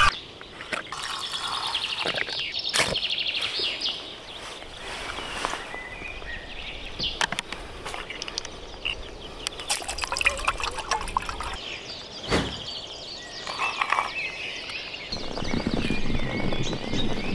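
Thin aluminium soda-can pieces clicking and crinkling as they are handled and fitted together, with liquid being poured. Near the end comes the low steady rush of the soda-can alcohol stove burning. Birds sing in the background.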